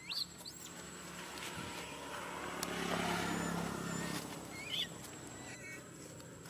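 A motor vehicle passes by, building to its loudest about three seconds in and fading over the next second and a half. Two short high-pitched squeaks come at the start and about three-quarters of the way through.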